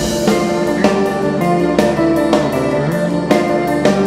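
Background music: a band with guitar and drums playing at a steady beat.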